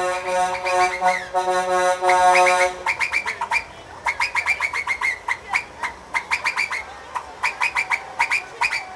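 A Scania truck's multi-trumpet musical air horn sounds a steady chord with a pulsing high note. Nearly three seconds in it switches to its whistle, a fast run of short chirps, several a second, in bursts with brief gaps.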